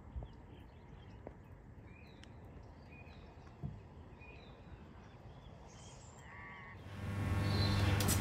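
Quiet outdoor morning ambience with faint small-bird chirps, and a crow cawing about six seconds in. Near the end a much louder steady hum with hiss sets in.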